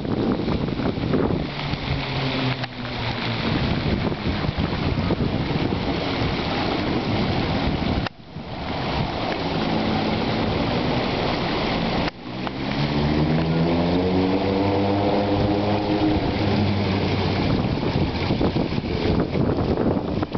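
Water rushing and splashing along a fountain channel, a steady loud noise with wind buffeting the microphone.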